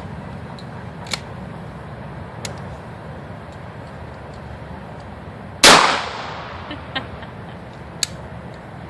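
A single pump-action shotgun shot about two thirds of the way through, its report echoing and fading over about a second. A few short, sharp clicks come before and after it.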